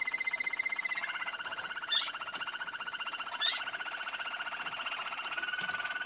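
Canary singing long, rapid rolling trills that drop in pitch about a second in and shift again near the end, with short sharp chirps about two and three and a half seconds in.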